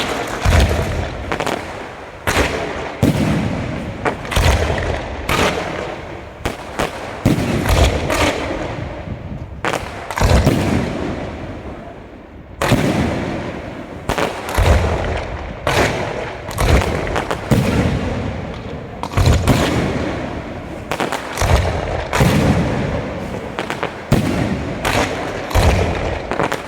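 Aerial fireworks display: shells bursting in quick, irregular succession, with sharp bangs, deep booms and echoing tails.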